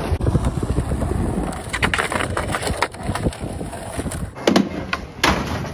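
Skateboard wheels rolling on concrete with a low rumble and scattered clacks, then a few sharp, loud clacks of the board's deck and tail striking the ground near the end.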